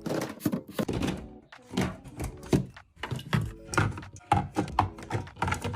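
Items being set down and knocked together while a fridge is restocked: a quick, uneven series of knocks and clinks, some with a short ringing tone.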